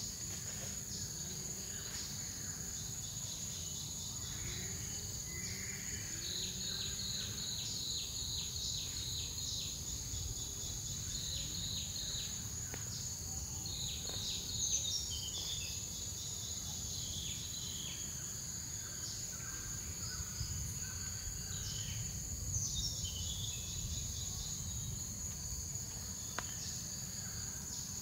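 Rainforest insects droning steadily at a high pitch, with a rapid ticking insect call from about six to twelve seconds in. A few short falling calls come over it about halfway through and again later.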